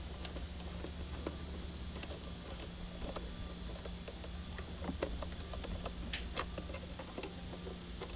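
Screwdriver working the wire-terminal screws of a Renogy Rover 20 A MPPT solar charge controller: scattered small clicks and ticks of metal and plastic, a few sharper ones about five to six and a half seconds in, over a steady low hum.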